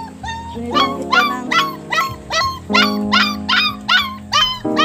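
A puppy yelping over and over in short high cries, about three a second. Background music with sustained chords plays underneath.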